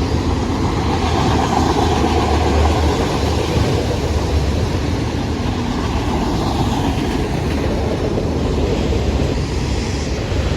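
Norfolk Southern freight train rolling past, a loud steady rumble of wheels on rails with no horn sounding.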